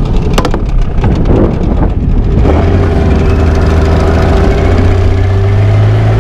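Small tiller outboard motor running and pushing the boat along; about two and a half seconds in its note settles into a steady, even drone. A few knocks sound near the start.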